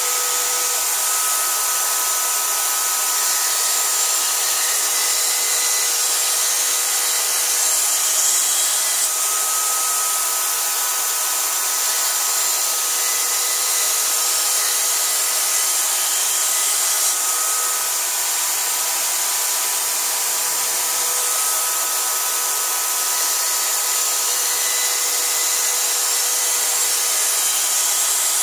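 Corded electric drill running steadily with a small grinding stone in its chuck, the stone rubbing along the steel edge of a kitchen cleaver to sharpen it. A steady motor whine under a continuous grinding hiss.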